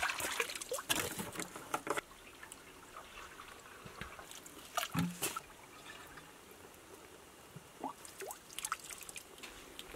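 Water being scooped by hand-held cup from a shallow spring and poured into plastic jerrycans: trickling and splashing, busiest in the first two seconds, with a louder splash or knock about halfway, then only small drips and clicks.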